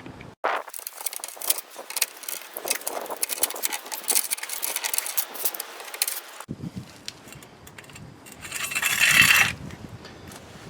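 A car jack being cranked down by hand to lower the car, with a dense run of metallic clicks and clinks for about six seconds. A louder rasping scrape follows near the end.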